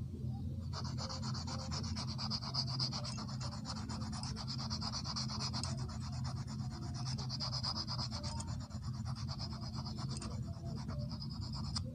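Brass wire of a handmade eel hook rubbed in quick back-and-forth strokes against sandpaper wrapped around a stick, sanding its barb sharp. The scraping starts about a second in and stops just before the end.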